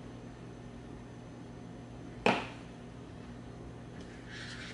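A single sharp tap a little over two seconds in, a metal hobby knife being set down on the tabletop, over a steady low room hum. Near the end, a brief soft scuff of hands pressing on the foam.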